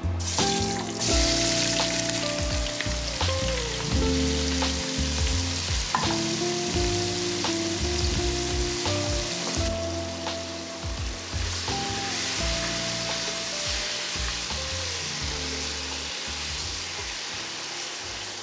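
Chopped carrots, celery and onion sizzling in hot fat in a stainless-steel pot. The sizzle swells about a second in as the vegetables go in, and flares again near the ten-second mark, while the vegetables are stirred with a wooden spoon. Soft background music plays underneath.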